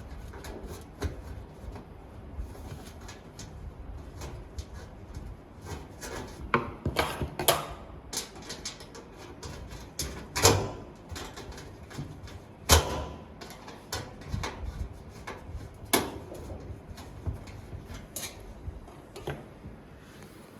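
Parts of a 2U DVR rack cabinet being handled and fitted together by hand: irregular clicks and knocks, with several louder knocks spaced a few seconds apart from about a third of the way in.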